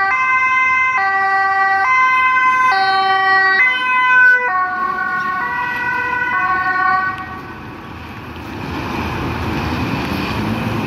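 Dutch ambulance's two-tone siren alternating between a high and a low note, each held about a second. The pitch drops about four and a half seconds in as the ambulance passes, and the siren cuts off about seven seconds in, leaving engine and road noise.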